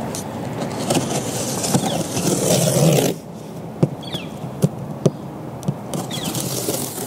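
Cardboard shipping box being opened by hand: about three seconds of loud rough tearing and scraping of tape and cardboard, then quieter rustling with several sharp taps and clicks.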